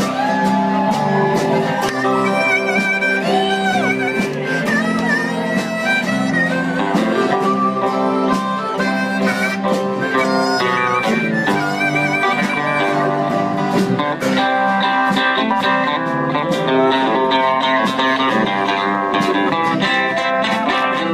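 Harmonica solo with bent notes over strummed acoustic guitars, the instrumental break of a live country song.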